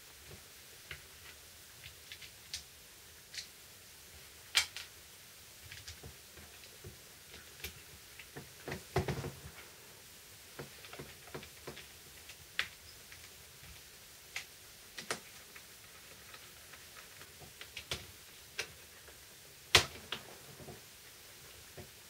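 Scattered light clicks and taps of hands handling and closing up the plastic housing of a Bosch multi-tool, with a screwdriver working at the housing screws near the end. A busier patch of knocks and rustling comes about halfway through, and the sharpest click comes near the end.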